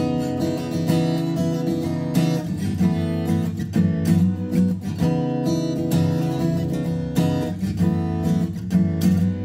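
Veelah V2-D dreadnought acoustic guitar played with the fingers, a run of strummed and picked chords with the strings ringing on between strokes.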